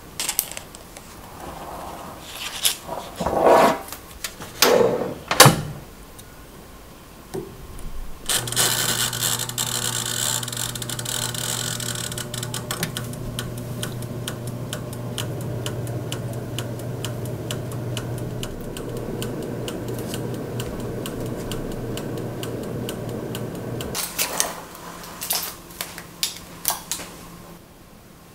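A few knocks and rustles, then a countertop toaster oven running for about fifteen seconds: a steady hum with the even ticking of its dial timer. The hum stops, followed by a few clicks and knocks.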